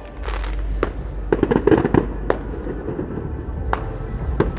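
Fireworks display heard from far off: a quick run of sharp bangs and crackles about a second and a half in, then single reports every second or so, over a low rumble.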